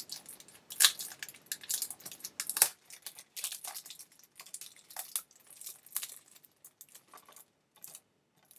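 Fingers picking and scratching at the wrapping and sticker on a plastic Blu-ray case: a run of small clicks, taps and crinkles, with sharper snaps about a second in and near three seconds in.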